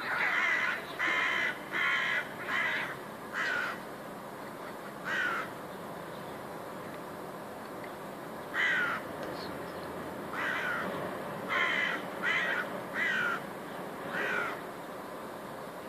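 Crow cawing harshly at two cats, scolding and harassing them. Five caws come in quick succession at the start, one more comes about five seconds in, and six more are spread through the second half.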